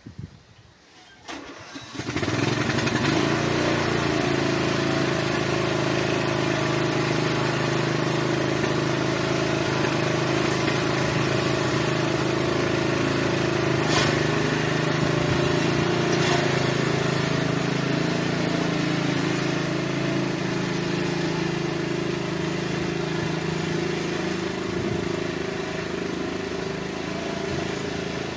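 Riding lawn mower engine starting about two seconds in, then running steadily, getting a little quieter near the end as the mower moves away.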